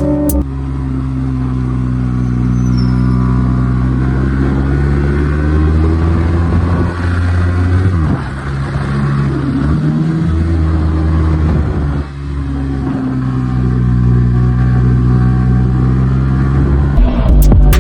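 Motorcycle engine running under way, its pitch rising and falling with the throttle, with a few short dips in the middle.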